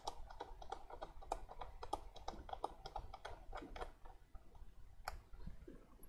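Faint, rapid light clicking of a T9 Torx screwdriver turning out a small screw, several clicks a second, thinning out after about four seconds, with one sharper click about five seconds in.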